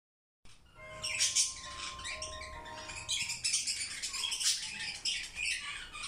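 Budgerigar chattering in rapid, continuous high-pitched chirps and warbles. Two faint steady tones sit underneath during the first few seconds.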